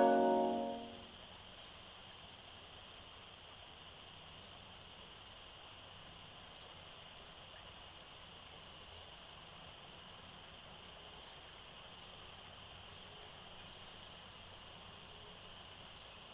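Steady high-pitched drone of an insect chorus, with a faint short chirp repeating about every two seconds; a music jingle fades out in the first second.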